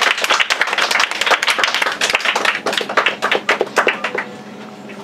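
Small audience applauding with hand claps, dying away about four seconds in.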